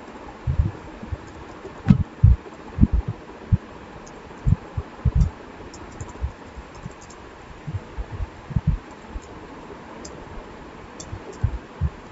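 Computer keyboard typing: irregular, dull keystroke taps with a few faint, sharper clicks, as a username and password are entered.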